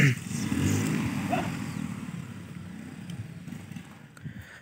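A motor vehicle engine running, loudest about half a second in and fading away over the next few seconds.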